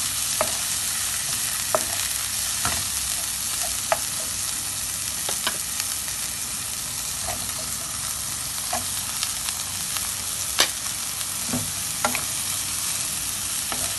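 Prawns, pork belly and garlic sizzling in oil in a nonstick pan as they are stir-fried with a wooden spatula: a steady hiss with scattered short knocks and scrapes of the spatula against the pan.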